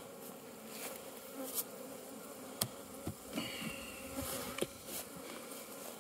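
Honeybees buzzing around an open hive in a steady hum, with a bee whining close by about halfway through. A few sharp wooden knocks come in the second half as hive frames and boxes are handled.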